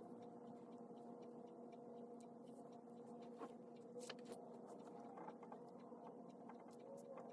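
Faint pen-on-paper writing sounds, a few short scratches and taps, over a steady low electrical hum.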